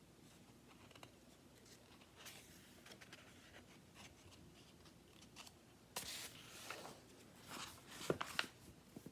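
Faint rustling and handling of a paper picture book's pages, probably a page being turned, with a few soft clicks near the end.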